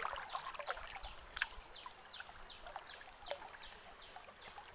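Sharp crackles and clicks from handling among dry bamboo stems and leaves over a faint trickle of running water. From about two seconds in, a short high chirp that falls in pitch repeats about three times a second, the call of a bird or insect.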